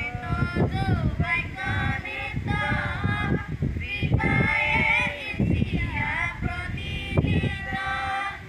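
A group of schoolchildren singing a prayer song together, with long held notes.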